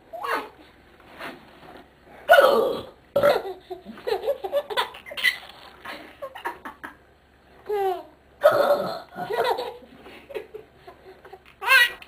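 Laughter from a baby in several bouts, with burps among the loud bursts, about two seconds in and again at around eight and a half seconds.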